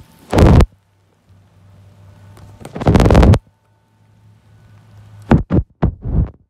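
Loud rubbing and scraping handling noise right on the phone's microphone, as the water-spotted lens is wiped by hand. It comes in three bouts: a short one just after the start, a longer one around three seconds in, and a quick run of four short rubs near the end.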